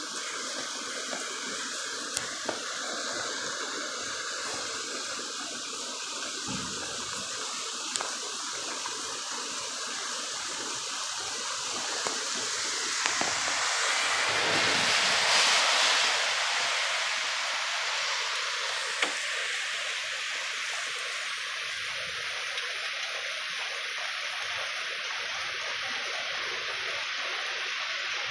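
Steady rain falling, swelling louder for a few seconds midway through, with a few sharp taps.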